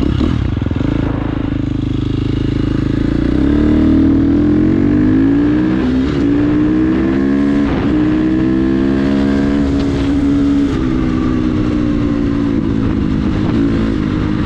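KTM 350 XC-F dirt bike's single-cylinder four-stroke engine running under load while being ridden. Its pitch climbs about three to four seconds in, then holds with brief dips and wobbles as the throttle changes.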